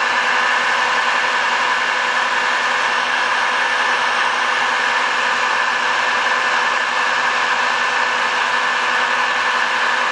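500-degree electric heat gun running steadily, its fan blowing hot air in a constant rush with a faint hum in it.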